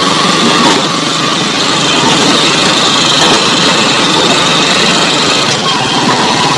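Small vehicle's engine running steadily while the vehicle is under way.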